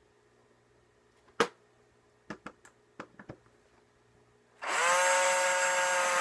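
A few light clicks from handling an electric drill. About four and a half seconds in, its motor spins up and runs with a steady whine.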